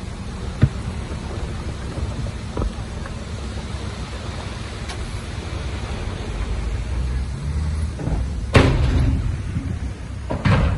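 Heavy diesel earthmoving machinery running with a steady low rumble, with a few sharp knocks and two loud clattering crashes near the end.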